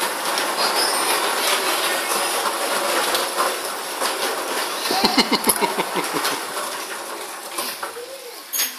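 Plastic wheels of a baby walker and a child's ride-on swing car rolling over a tile floor, a steady rumbling rattle with a quicker run of clattering about five seconds in.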